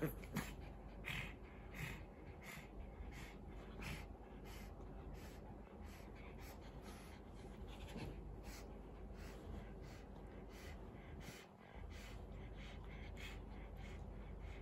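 A pug and a Shih Tzu play-wrestling on a bed: short, irregular breaths and snuffles, with the bed covers rustling.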